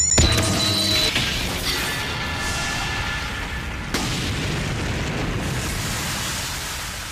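Kamen Rider Faiz finishing-attack sound effect: a heavy synthesized boom that opens into a long, noisy explosion decay, with electronic tones ringing over it for the first couple of seconds and a sharp click about four seconds in, slowly fading away.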